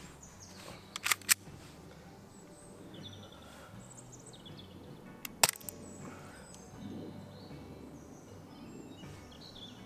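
Novritsch SSP18 gas-blowback airsoft pistol being shot: a close pair of sharp clacks about a second in and another pair about five and a half seconds in, the pistol firing and its slide cycling as 0.28 g BBs are fired at a G-Shock watch. Faint bird chirps between the shots.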